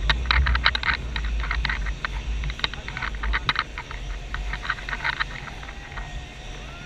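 Wind on the microphone: a steady low rumble with many quick, irregular clicks and crackles.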